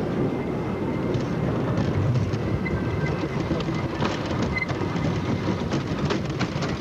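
Wooden roller coaster train rolling along its track: a steady low rumble of the wheels on the wooden track, with sharp clacks in the second half.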